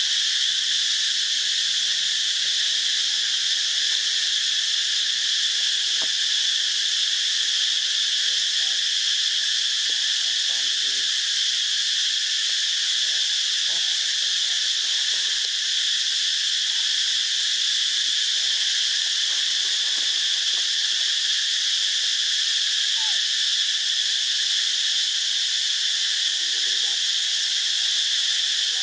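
Insects buzzing in a loud, steady, high-pitched chorus, with a few faint short calls underneath now and then.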